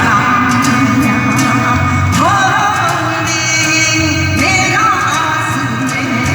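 A Korean folk song (minyo) sung over loud backing music with a steady beat. The voice slides up into long held notes with a wavering pitch about two seconds in and again about four seconds in.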